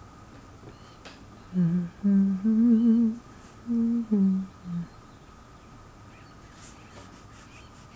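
A person humming a short tune: a few held, slightly wavering notes for about three seconds, starting about a second and a half in.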